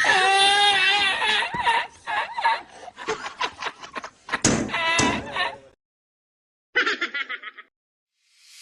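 High-pitched human laughter and squealing with a wavering pitch, mixed with sharp knocks and slaps, stopping suddenly after nearly six seconds. A short burst of the same laughing sound follows about a second later.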